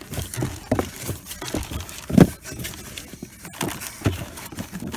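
Cardboard parts box being handled: irregular knocks and rustling, with one louder thump about two seconds in.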